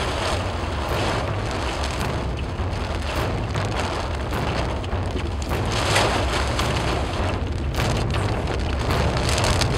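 Heavy rain pelting a car's roof and windows, heard from inside the car as a dense patter of drops over a steady low rumble.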